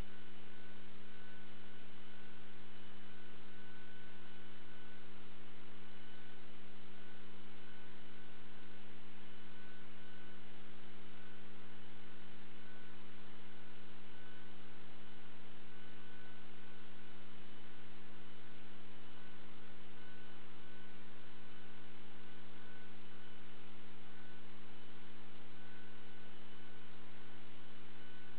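Steady electrical mains hum, a stack of low steady tones over an even hiss, with a faint high-pitched tone that flickers on and off.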